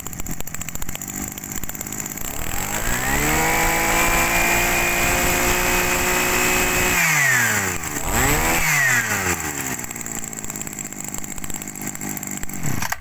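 Robin 253 brush cutter's small two-stroke engine on a test run. It idles, is revved up and held at high speed for a few seconds, then drops back. It gets one more quick rev, settles to idle again and cuts off right at the end.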